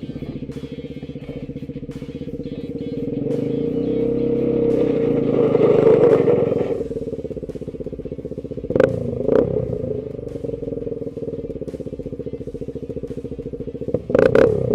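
Single-cylinder ATV engine running under load while plowing snow, revving up for a couple of seconds midway and then settling back, with a few sharp clanks. Rock background music plays underneath.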